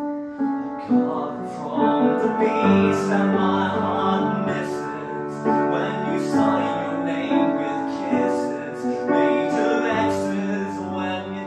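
Grand piano playing a song passage of full chords and melody. It comes in loudly and suddenly after a quiet moment.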